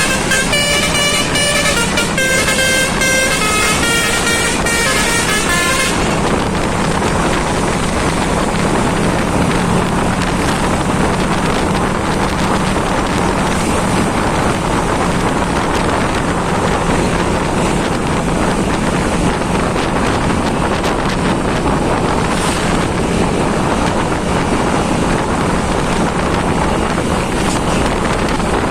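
A bus's telolet basuri melodic horn plays a quick run of stepping notes for about six seconds, then cuts off suddenly. A loud, steady rush of road noise follows.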